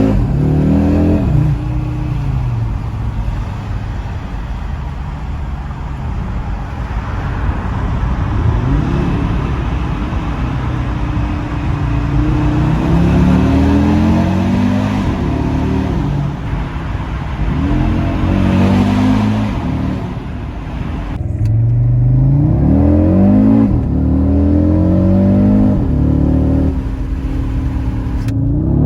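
Audi RS Q3's 2.5-litre turbocharged five-cylinder engine accelerating hard through the gears, its pitch climbing in each gear and dropping back at every upshift. The pattern repeats over several runs.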